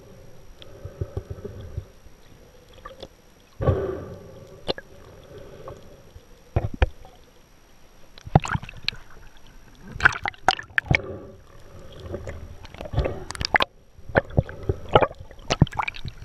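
Seawater sloshing and gurgling around a spearfisher's camera held just under the surface, with a run of sharp splashes and clicks from about eight seconds in as it nears and breaks the surface.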